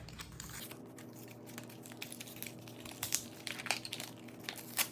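Tech Putty packaging being handled and opened: intermittent crinkling and rustling with a few sharp clicks, the loudest near the end.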